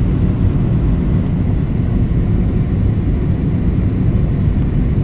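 Steady deep rumble inside the cabin of a Boeing 737-800 at a window seat beside the wing: its CFM56-7B turbofan engines and the rushing airflow, on approach to landing.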